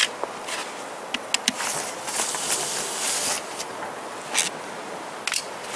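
Metal clicks and knocks as a 10 mm socket wrench works the bolts on an oil pump cover, with a short stretch of rasping about two seconds in.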